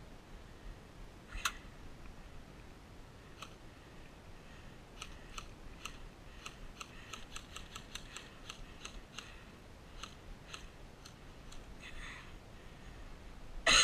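Scattered sharp ticks of airsoft fire: a single tick about a second and a half in, then an irregular run of ticks, two or three a second, from about five to eleven seconds in.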